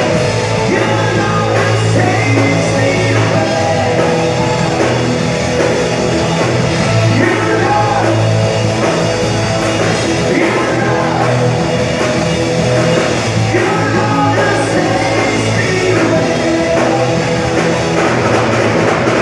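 Live rock band playing loudly, with a singer.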